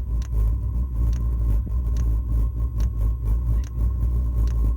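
Chinese 5 kW diesel heater during start-up, not yet firing because fuel has not reached it: the fan runs with a deep steady hum and a steady whine, while the fuel dosing pump ticks about once a second, pumping diesel up the still-empty fuel line.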